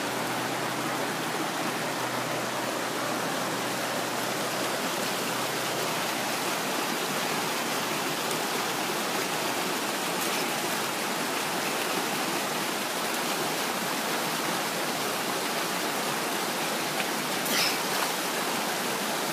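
Creek water rushing steadily over rocks, with a brief splash near the end as a stick is jabbed into the water.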